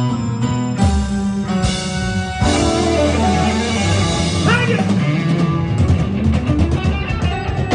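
Live band playing with no vocals: electric guitar over bass and drums, the drumming getting busier in the second half.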